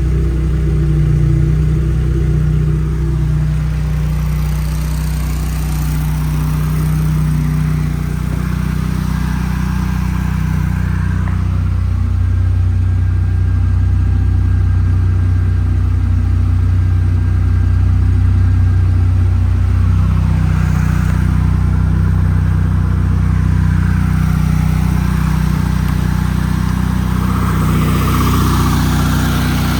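An engine running steadily, with its pitch and note shifting a couple of times.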